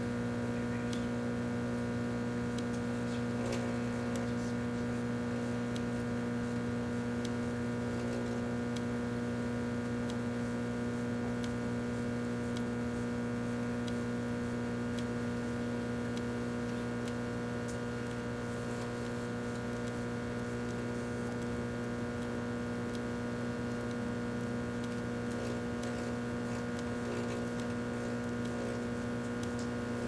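Microwave oven running: a steady electrical hum from its high-voltage transformer and magnetron, with faint scattered ticks.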